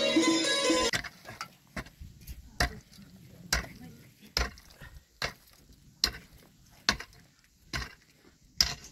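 Music that cuts off abruptly about a second in. Then a pickaxe strikes loose soil and stones in a steady rhythm, about one blow a second.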